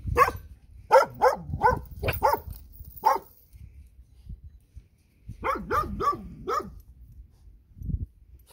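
A dog barking in two runs of short, sharp barks, about seven in the first three seconds and five more a couple of seconds later. A dull thump comes near the end.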